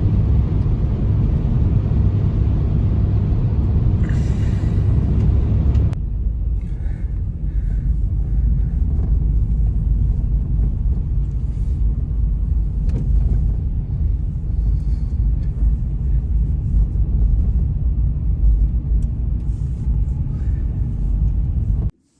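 Blizzard wind buffeting the microphone as a loud, deep, steady rumble. It changes abruptly about six seconds in and stops suddenly near the end.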